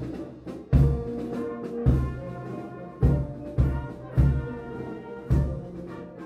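Background music: sustained chords over heavy, regularly spaced drum hits, about one to two a second.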